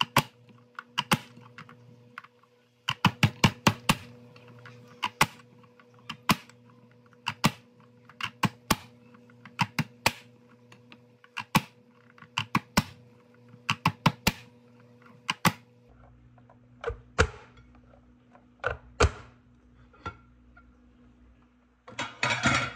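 Manual push-down vegetable chopper dicing hard raw carrot: repeated sharp plastic clacks as the lid is slammed down through the grid blade, some in quick runs and others a second or more apart. Near the end there is a short rustling clatter.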